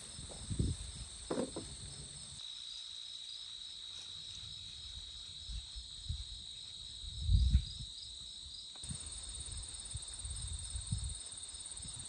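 Insects chirring steadily with a high, even, pulsing note, over a few dull low thumps from digging in the garden soil, the loudest about seven seconds in.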